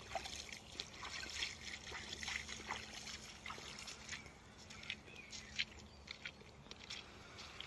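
Small irregular splashes and drips of shallow water as a sea trout is held and handled at the surface.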